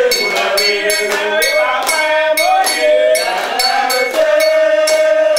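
Ritual chanting by a man's voice, bending and holding long notes, over a metal bell struck in a steady rhythm about two to three times a second.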